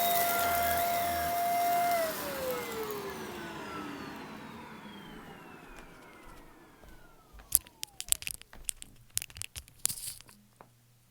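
Shark vacuum cleaner running with a steady whine, switched off about two seconds in, its motor falling in pitch and fading as it winds down. Near the end, a quick run of sharp clicks and rattles.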